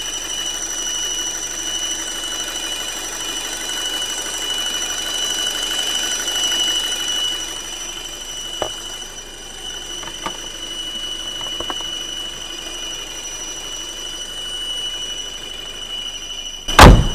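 Car engine running with a steady high-pitched whistle from under the hood, a second whistle an octave above it. The owner suspects the crankcase ventilation hose. A single loud thump near the end.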